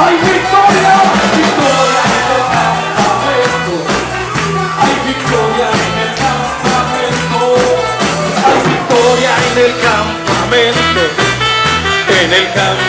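Upbeat worship music from a band with bass and drums keeping a steady beat, and voices singing along.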